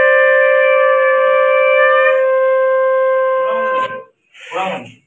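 Conch shell (shankh) blown in one long, steady note that stops about four seconds in. A brief, rougher sound follows near the end.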